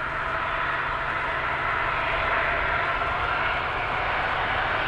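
Boeing 747-400's four Rolls-Royce RB211 turbofans at takeoff thrust, a steady rushing jet noise growing gradually louder as the jumbo begins its takeoff roll.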